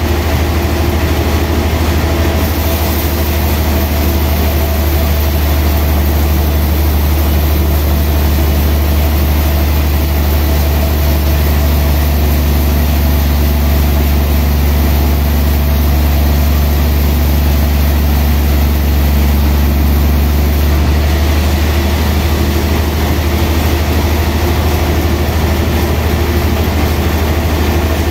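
Large vertical band saw mill running with a loud, steady deep hum.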